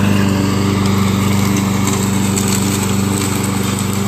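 Walk-behind gas lawn mower engine running at a steady speed.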